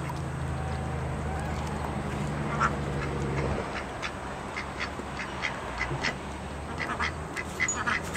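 Domestic ducks, Welsh Harlequins and Anconas, giving short, scattered quacks while foraging on weeds.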